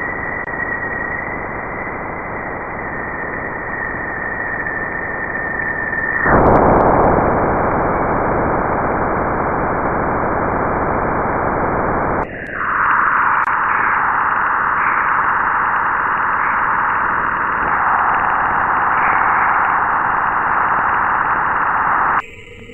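Space 'planet sounds': sonified spacecraft recordings of radio and plasma emissions, heard as a steady hiss. For the first six seconds a high steady tone rides on the hiss, then comes a plain brighter hiss, and from about twelve seconds in a wavering higher band. The sound changes abruptly near the end.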